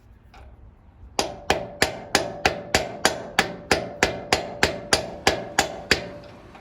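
Rubber mallet tapping on a large socket to drive a new oil seal onto a Farmall 450's PTO lever shaft: a steady run of about sixteen even strikes, roughly three a second, each with a short metallic ring from the socket. The seal is being seated flush.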